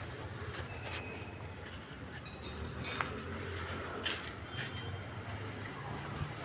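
Quiet ambient background: a steady high-pitched hiss with a low hum under it, and a few faint clicks around the middle.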